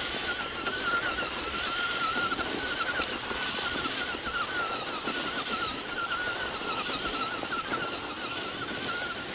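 Electric RC car's motor and drivetrain whining at a high pitch that wavers quickly up and down as it is driven.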